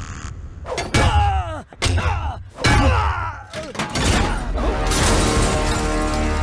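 Action-film fight sound: two sharp hits about a second and a half apart, each followed by a man's cry of pain falling in pitch, then dramatic music swelling with held tones.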